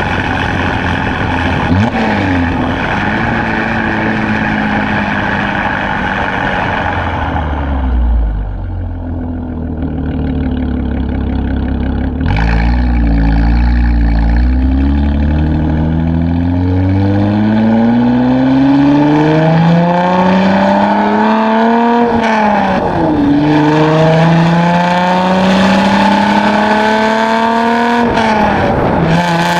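Chevrolet Camaro engine through a Borla ATAK axle-back exhaust, first cruising steadily and then droning deep and low at low revs. About twelve seconds in it turns suddenly louder under acceleration, the revs climbing in long rising sweeps, with two gear changes where the pitch drops sharply near the end.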